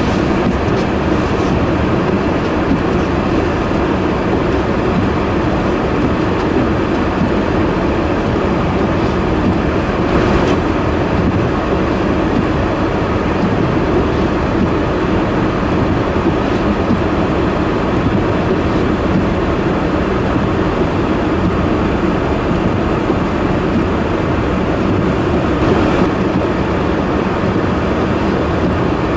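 Steady, loud rushing noise that holds even throughout, with no distinct events.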